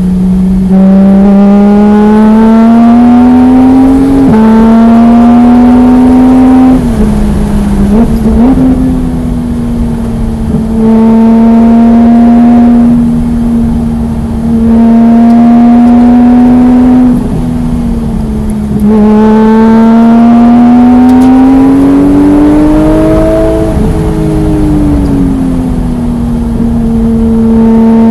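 Porsche 991.1 GT3's naturally aspirated 3.8-litre flat-six pulling hard at full throttle, its note climbing over several long stretches, with brief lifts off the throttle between them where the sound drops away.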